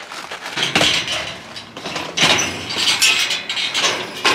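Irregular clattering and rustling of objects being handled, with light clinks.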